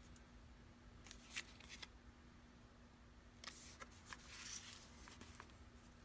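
Faint rustling and light taps of paper instruction manuals and a card being handled, about a second in and again from about three and a half seconds; otherwise near silence with a faint steady hum.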